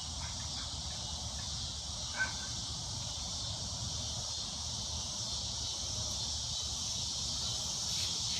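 Steady outdoor insect chorus, like crickets, in a continuous high band, over a low steady rumble, with one faint short click about two seconds in.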